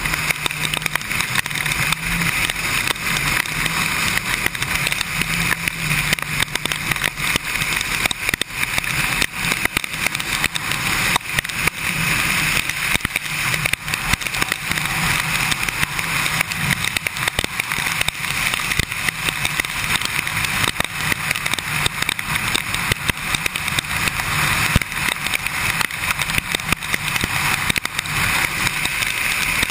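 Kawasaki Ninja sport bike's inline-four engine at a steady cruise in the rain, its low drone mostly buried under constant wind rush and the hiss of tyres on the wet road. Frequent small crackles come from rain and wind striking the camera.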